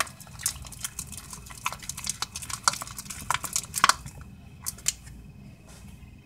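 A utensil stirring runny homemade slime in a plastic bowl, with quick irregular clicks and taps against the bowl. The taps come thick and fast for about four seconds, then only a few more.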